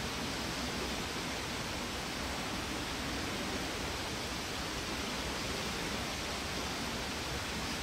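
Steady, even hiss of a large indoor diving pool hall's background noise, with no splash or voices.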